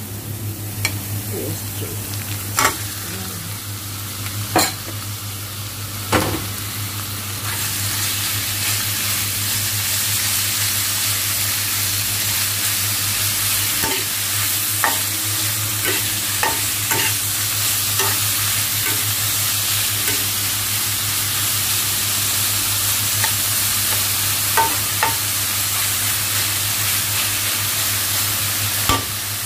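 Onion, garlic and diced raw chicken breast sizzling in bacon fat in a frying pan, with a plastic spatula stirring, scraping and knocking against the pan. The sizzle grows louder about seven seconds in, as the raw chicken goes into the hot pan.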